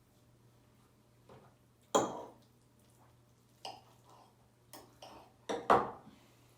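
Fork clinking against a dish several times while eating lasagna. The clicks are sharp and short, and the loudest come about two seconds in and near the end.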